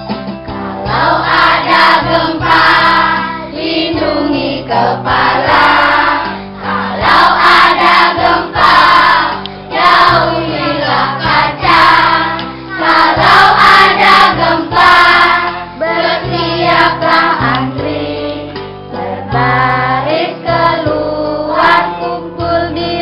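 A large group of children singing a song together in chorus, over steady backing music.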